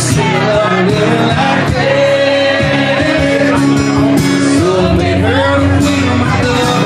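A man singing a country song live, accompanied by strummed acoustic guitars.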